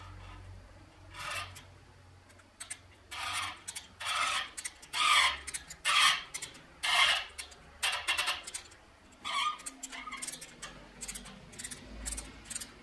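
An M12 tap cutting threads into a brass valve body, turned by hand in short strokes. Each stroke gives a rasping scrape, roughly one a second, loudest in the middle of the run.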